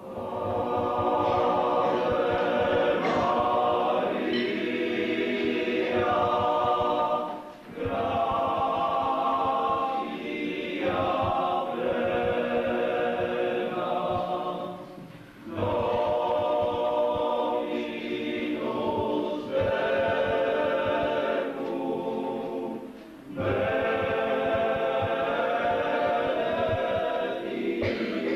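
A group of voices singing a hymn at Mass. The singing comes in lines of about eight seconds, each followed by a brief pause for breath.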